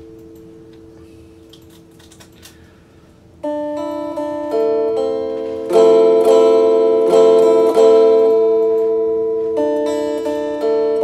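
Strat-style electric guitar: a held note rings and slowly fades, then about three and a half seconds in chords are picked and strummed, several strokes that ring on and decay, with a fresh chord struck near the end.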